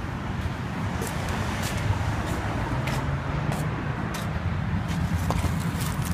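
Footsteps on concrete pavement at a walking pace, about one and a half steps a second, over a steady low rumble.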